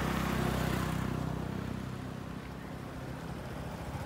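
A motor engine running steadily with a low hum, loudest in about the first second and then easing off.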